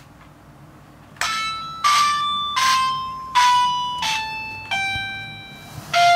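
A toy piano in a children's book, its keys pressed one at a time: after about a second of quiet, seven bell-like notes sound about two-thirds of a second apart, each dying away, stepping down the scale.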